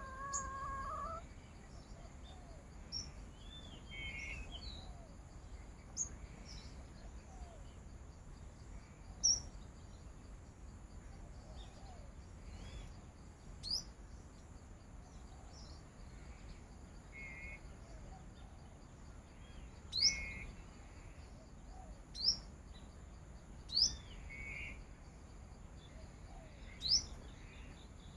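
Small birds calling: short, sharp rising chirps every couple of seconds, with a few lower calls among them, over a faint steady high-pitched drone.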